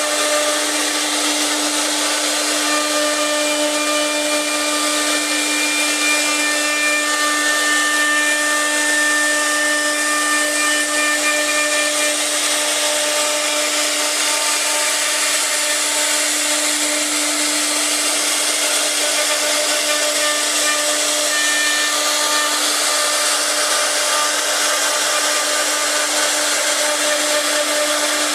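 CNC router spindle running with a steady whine while the bit cuts wood, under a constant hiss of cutting.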